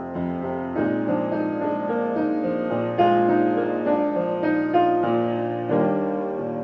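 Piano playing slowly, with new chords struck about every one to two seconds and left to ring.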